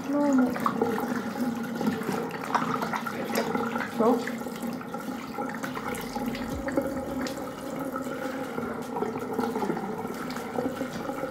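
Tap water running into a bathroom sink, with lukewarm water splashed onto the face by hand while rinsing the face.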